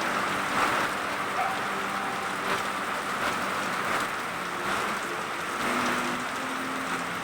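Heavy rain falling steadily, a dense even hiss with slight surges.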